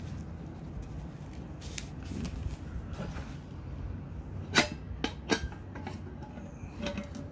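Hands handling a camping wok set: a few short, sharp clicks and knocks, the loudest three close together a little past the middle. A low steady hum runs underneath.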